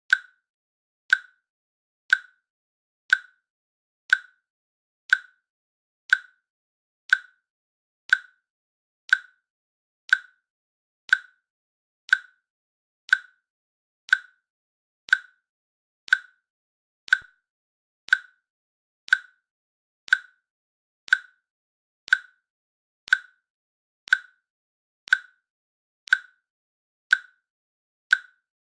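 A countdown timer's click sound, one short, sharp click exactly once a second, evenly spaced, marking each second of the countdown.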